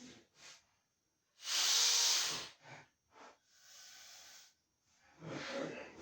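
A person breathing heavily: a loud hissing exhale about a second and a half in, then shorter breaths in and out.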